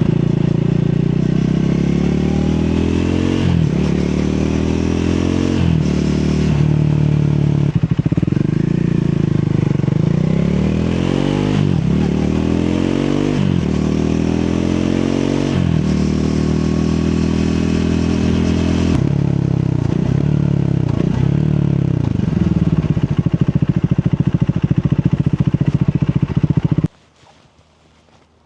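Triumph Speed 400's single-cylinder engine under way. The engine pitch climbs and drops back again and again as it accelerates and shifts through the gears. The sound cuts off suddenly near the end.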